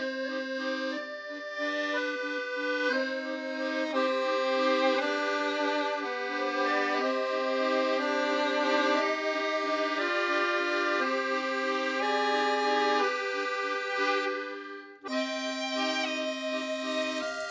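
Instrumental background music with held notes in chords that change about once a second; it drops away briefly about fifteen seconds in, then starts again.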